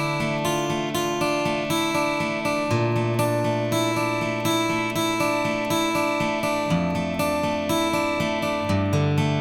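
Background music: acoustic guitar picked steadily through changing chords.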